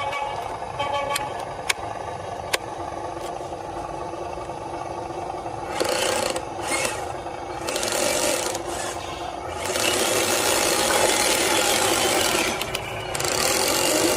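Rough scraping and rasping from RC model vehicles working over the forest ground. A few sharp clicks come first, and from about halfway through the noise comes in bursts with short gaps.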